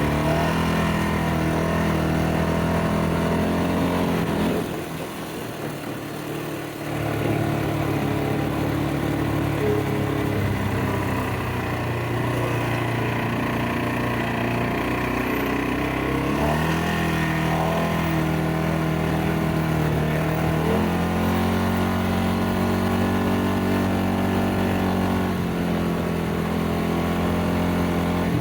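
ATV engine running while being ridden, its pitch shifting as the throttle is opened and eased. It drops off briefly about five seconds in, then picks up again.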